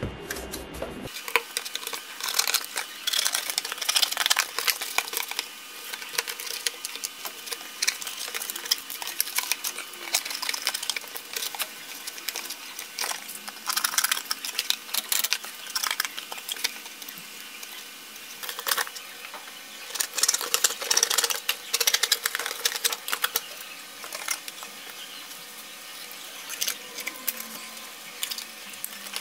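Scissors cutting thin cardboard while the cardboard is bent, folded and handled: irregular bunches of snips, crackles and scrapes with short pauses between.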